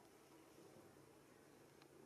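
Near silence: faint background hiss with a faint steady low hum.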